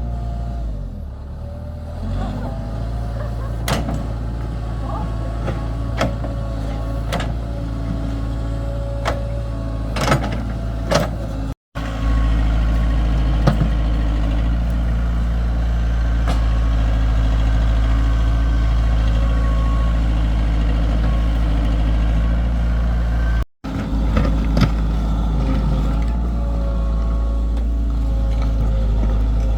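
Heavy machinery's diesel engine running steadily with a deep hum, with scattered sharp metallic knocks and clanks, mostly in the first half. The sound cuts out briefly twice.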